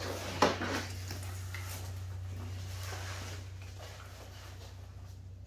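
A Tacticon Elite plate carrier, loaded with plates and with its backpack attached, being lifted and pulled on over the head: a sharp knock about half a second in, then faint rustling of nylon gear, over a steady low hum.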